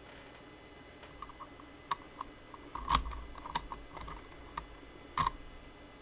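Irregular small metallic clicks and taps from handling a metal lock and its picking tools, with two louder knocks about three seconds in and just after five seconds.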